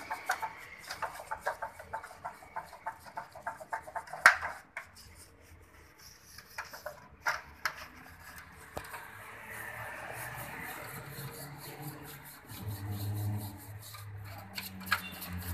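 Quick, rapid rubbing strokes of a bristle brush scrubbing a Honda Spacy 110cc cylinder head in a tray of dirty cleaning liquid. A sharp knock comes just after four seconds in. A low engine hum comes in near the end.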